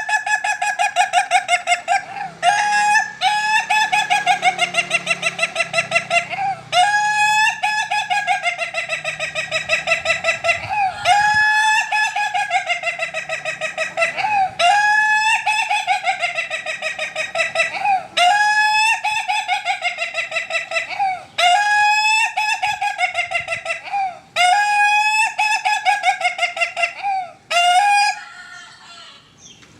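Ayam Ketawa (laughing chicken) rooster crowing over and over: long crows, each a rapid stuttering run of notes that wavers in pitch, with short breaks between them. The crowing dies down near the end.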